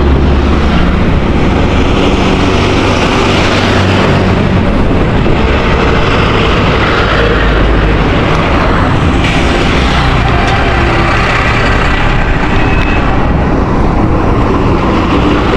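Heavy trucks' diesel engines running in a highway traffic jam close by, a steady low rumble with traffic noise.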